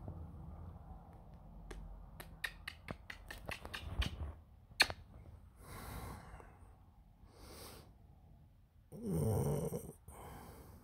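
A sleeping puppy breathing heavily with snore-like breaths. A run of quick clicks comes faster and faster about two to five seconds in, and a short, louder low groan follows about nine seconds in.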